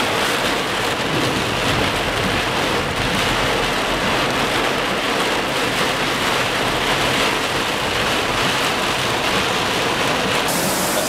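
Heavy rain pelting the roof and windscreen of a moving car, heard from inside the cabin as a dense, steady hiss.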